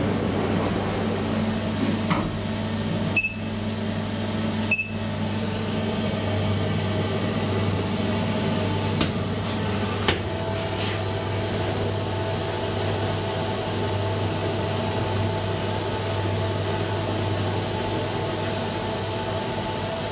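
2012 SMW traction elevator car travelling between floors: a steady low hum throughout, with a few clicks, two short beeps a few seconds in, and a higher whine that joins about ten seconds in.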